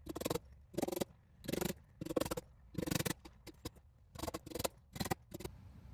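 Hammer driving nails into a pressure-treated 4x4 wooden post: about ten sharp strikes at an uneven pace, stopping about five and a half seconds in.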